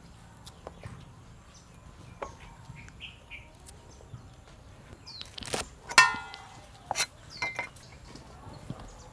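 Light clicks of vegetables being handled and peeled with a knife, then, just past halfway, a few knocks and one sharp clink that rings on, from vegetables dropped into a stainless steel bowl. A faint bird chirp about three seconds in.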